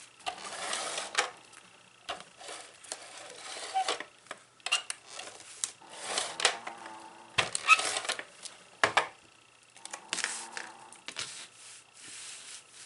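Cardstock die cuts being handled and pressed onto a scrapbook page: irregular paper rustling with sharp taps and clicks on the tabletop.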